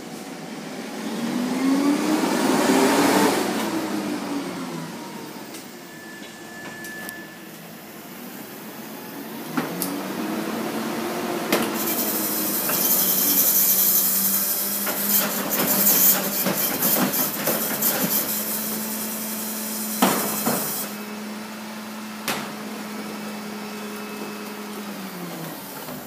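Rear-loader garbage truck at work: its diesel engine revs up and back down, then trash cans knock sharply against the hopper as they are emptied. The hydraulic packer then runs with the engine held at a steady raised speed and a loud hiss for several seconds, with more knocks of cans in between.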